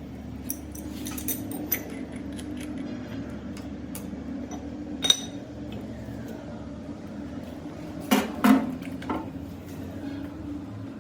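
Metal parts and tools clinking and knocking against each other, with a sharp ringing clink about five seconds in and a cluster of louder knocks about eight seconds in, over a steady low hum.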